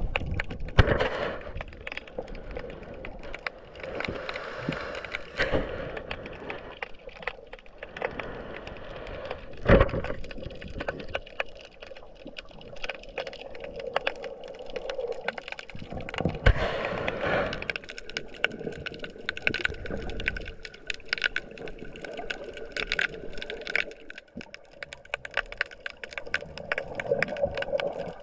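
Underwater crackling and clicking picked up by a GoPro in its waterproof housing. Louder knocks come about a second in and again near ten seconds.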